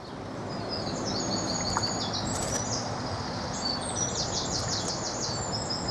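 Wild songbirds singing: series of short high whistled notes and, a little past halfway, a fast rapid trill, over a steady background hiss.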